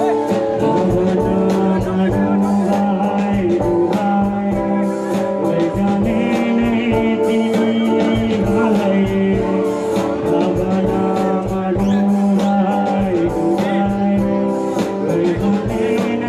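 Live rock band playing: electric guitars sustaining chords over a Tama drum kit, with a voice singing.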